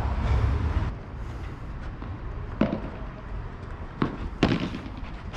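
Padel rally: a few sharp pops of rackets striking the ball, about two and a half, four and four and a half seconds in, with a low wind rumble on the microphone in the first second.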